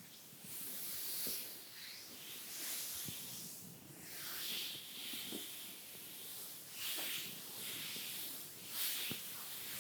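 Soft makeup brushes swept lightly over bare skin: a run of gentle swishing strokes that swell and fade every second or two, with a few faint ticks.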